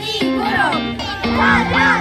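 Background music: a song with a singing voice over a bass line of short, changing notes.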